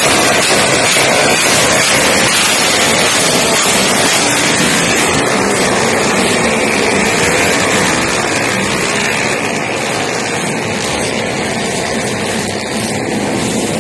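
Several drag-racing motorcycle engines running loudly together, a dense continuous din that eases slightly about eight seconds in.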